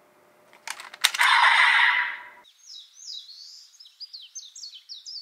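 A couple of sharp clicks, then a loud burst of static-like noise for about a second, followed by a quick run of high, downward-sliding chirping squeaks, several a second.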